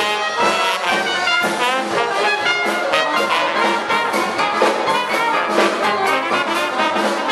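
Trombone playing a melodic lead with a live Dixieland jazz band, over a steady rhythmic beat.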